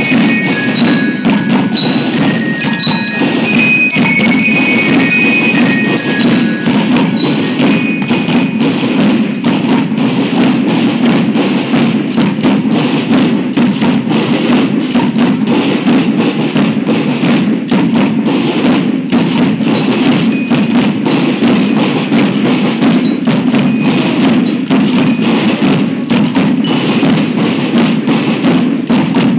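School marching band playing: dense, rapid drumming with a steady low drum beat, and bell lyres playing a melody over the first several seconds before the drums carry on mostly alone.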